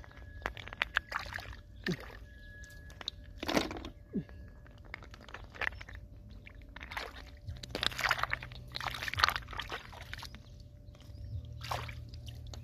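Hands sloshing and splashing in a shallow muddy puddle while scooping up snails, in short irregular splashes with light clicks of shell on shell; the splashing is busiest in the second half.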